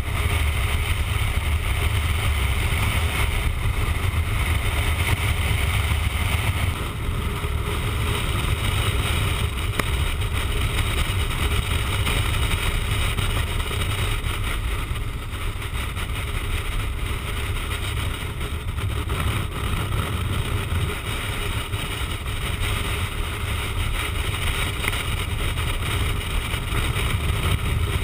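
Motorcycle cruising at highway speed: steady wind rush buffeting the bike-mounted microphone, over the engine's drone and tyre noise. The hiss eases slightly about seven seconds in.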